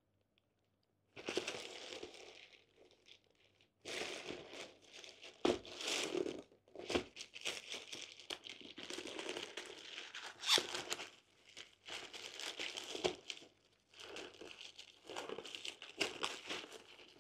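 Plastic mailer bag crinkling and crumpling in irregular bursts as hands handle and pull it open, with a few sharper crackles; it starts about a second in.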